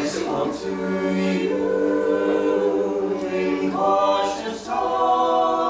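Mixed a cappella vocal group of men and women singing slow, sustained chords in close harmony, moving to a higher chord about four seconds in.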